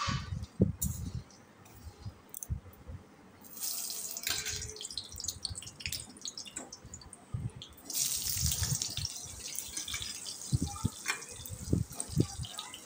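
Panch phoron seeds sizzling and crackling in hot mustard oil in a steel wok, with a few dull knocks. The sizzle swells about three and a half seconds in and again near eight seconds.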